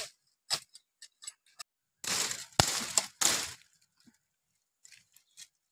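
Dry bamboo and undergrowth snapping and crackling as a knife works among the bamboo stems: three short bursts of crackling with one sharp crack among them, after a few light clicks.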